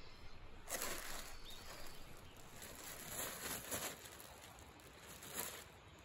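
Faint crinkling of a clear plastic bag and rustling of foliage as a gloved hand works among the plants. It comes in a few short bursts: about a second in, again around three to four seconds in, and once more near the end.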